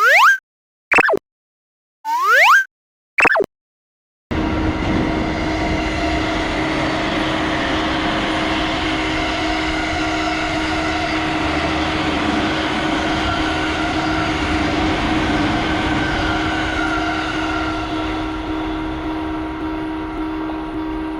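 Four short rising-pitch cartoon sound effects with silence between them, then about four seconds in a train running steadily, a continuous rumble with a held hum, easing slightly near the end.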